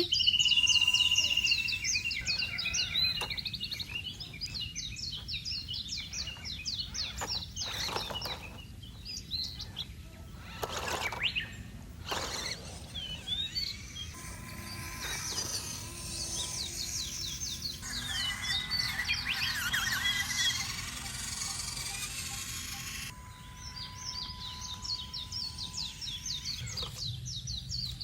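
Birds chirping and twittering in dense runs of quick, high chirps, with a few brief noisy swishes partway through.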